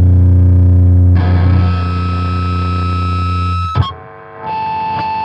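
Electric guitar through a TC Electronic Eyemaster HM2-style distortion pedal and a high-gain Mesa Boogie amp, letting heavily distorted low chords ring out, with a change of chord just over a second in. Near four seconds the strings are muted with a click, then the ungated amp hums and buzzes under a steady high whine.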